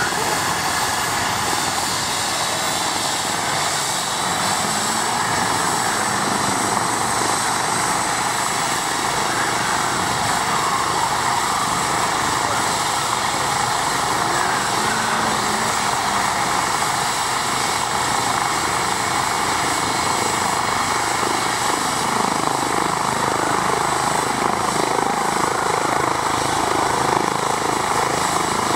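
Eurocopter EC135T2 helicopter running on the ground with its rotors turning: a steady turbine whine from its twin Turbomeca Arrius turboshafts over rotor and Fenestron tail-rotor noise, growing slightly louder near the end.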